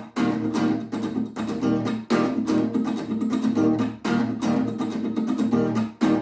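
Guitar strumming chords with no singing, the chords changing about every two seconds with a brief gap at each change.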